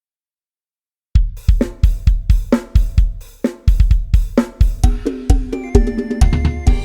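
Music: a sampled drum kit and bass backing in the Isan 'lai hae' procession rhythm, starting about a second in with a steady kick and snare beat and cymbals. A stepping melodic line joins about five seconds in.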